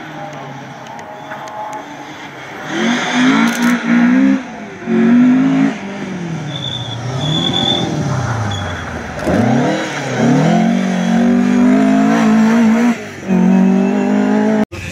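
Rally car engine revving hard as the car drives flat out along the stage, its pitch climbing and breaking at each gear change and lift. The car is quieter at first, then louder as it passes close by. The sound cuts off suddenly near the end.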